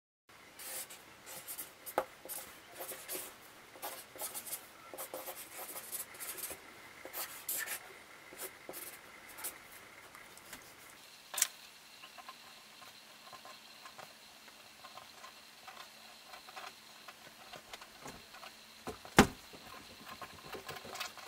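A pen scratching on paper as someone writes by hand, in short irregular strokes. The strokes grow fainter after about halfway, with a sharper knock about halfway and another near the end.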